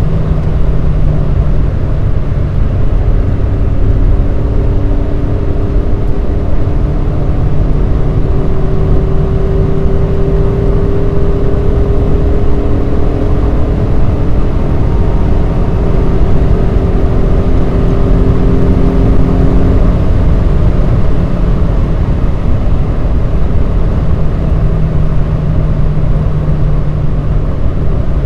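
Stock Honda Civic EJ9 running on the road with engine and road noise. The engine note holds fairly steady for several seconds at a time, shifting in pitch now and then, over a constant low rumble.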